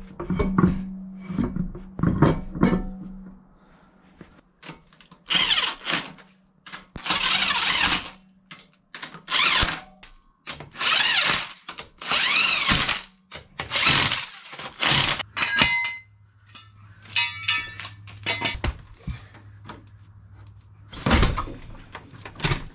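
Corded electric impact wrench running lug nuts onto a wheel hub in about seven short bursts of roughly a second each, its motor whining up and down. Knocks and clanks of the wheel being fitted to the hub come in the first few seconds.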